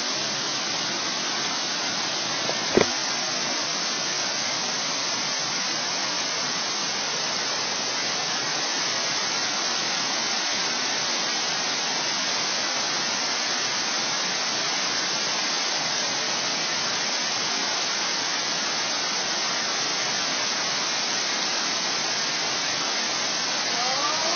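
Steady rush of Turtleback Falls' water sheeting down its sloping rock slide. A single sharp knock about three seconds in, and a brief rising voice near the end.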